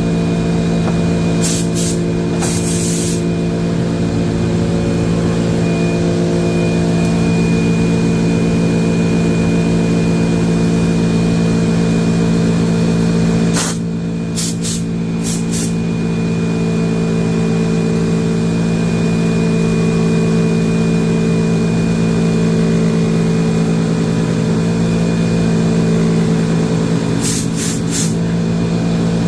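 Electric motor of a drill press converted into a lathe, running with a steady hum. Three times there is a short burst of high hissing.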